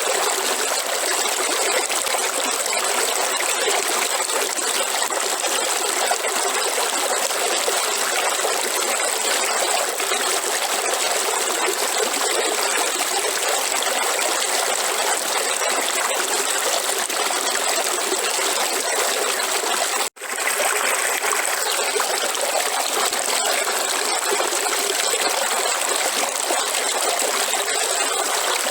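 River water flowing and trickling in a steady, even rush, with a thin high-pitched tone held above it. The sound cuts out for a split second about twenty seconds in, then resumes unchanged.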